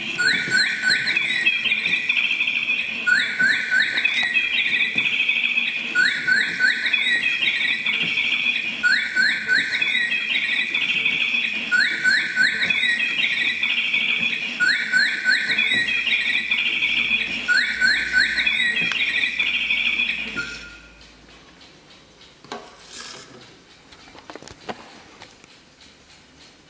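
Electronic singing-bird alarm of a cuckoo alarm clock: the same chirping birdsong phrase repeats about every two and a half seconds, then stops suddenly about twenty seconds in. A few faint clicks follow.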